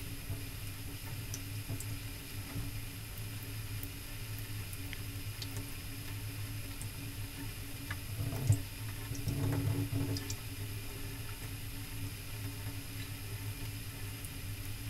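Thin stream of tap water trickling into a stainless steel sink, over a steady low hum, while a kitten drinks from it and paws at it. A single sharp knock comes about eight and a half seconds in, followed by a second or so of louder splashing and scuffling.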